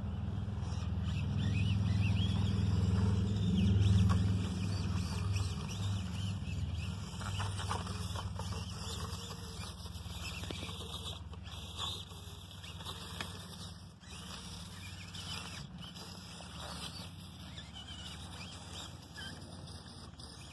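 Micro-scale RC crawlers driving over dirt and charred bark: small motors whirring, tyres scrabbling, and scattered light clicks and scrapes. A low rumble is loudest in the first few seconds, then fades.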